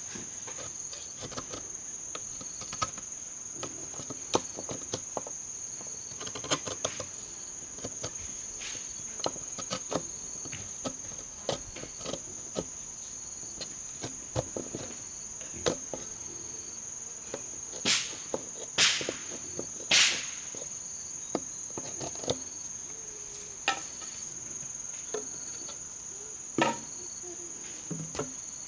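A steady, high insect drone, with scattered knocks and clacks of green bamboo poles being handled and set against each other. About two-thirds of the way through come three louder knocks, roughly a second apart, and there is another sharp knock near the end.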